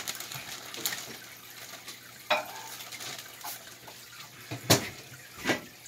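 Water sloshing and splashing with a few sharp knocks against the container as a large crayfish is fished out of the water by hand; the loudest knock comes near the end.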